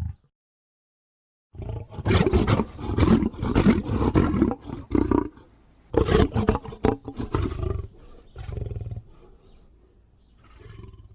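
Lion roar sound effects for a griffon creature: a long loud roar starting about a second and a half in, a second roar about 6 s in, then two shorter, quieter calls near the end, separated by dead silence as in an edited effects reel.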